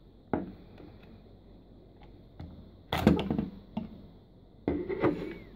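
Hard plastic clicks and clatter from a toy transformation belt and its Progrise Key being handled: a sharp click, then two short bursts of rattling clicks about two seconds apart as the key is pulled out of the driver and moved away. The driver makes no electronic sound of its own.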